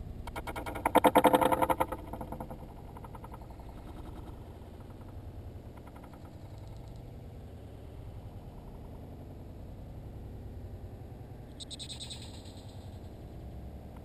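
A blue jay's wings flutter loudly as it flies in and lands on the wooden feeder's rim, a rapid burst lasting about a second, starting about a second in. A faint low rumble follows, with a brief soft hiss about twelve seconds in.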